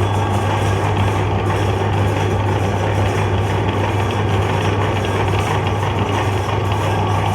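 Electric meat grinder running steadily, a constant motor hum with a grinding noise over it.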